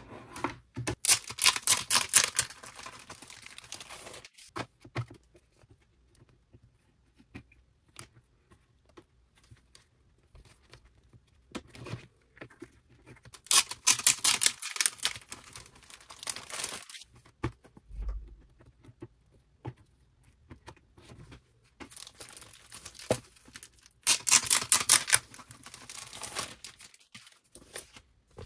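Clear plastic A4 binder pages (thick polypropylene photocard sleeves) crinkling and rustling as they are handled and fitted into a ring binder, in several bursts a few seconds long, with scattered light clicks in between.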